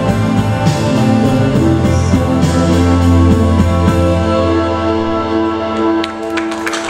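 Live band of electric guitars, bass, keyboard and drums holding a sustained closing chord, with a few cymbal hits early on. The chord thins and fades in the last couple of seconds as the first hand claps come in near the end.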